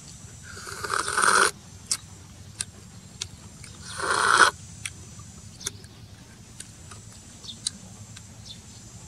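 Two loud slurps as fried snail meat is sucked out of the shell, one about a second in and another about four seconds in, each rising and stopping abruptly. Small wet mouth clicks from chewing fall between them.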